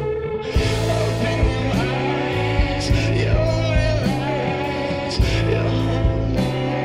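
Psychedelic garage rock music: guitars over a steady drum beat, with a singing voice.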